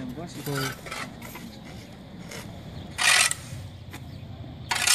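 A shovel blade scraping across the gritty dirt ground beside a compost heap: two short, harsh scrapes, about 3 s in and again near the end.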